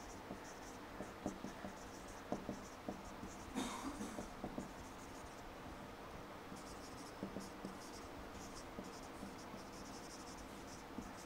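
Dry-erase marker writing on a whiteboard: faint squeaking and scratching in quick strokes, letter by letter, with short pauses between words and a few small knocks of the marker tip.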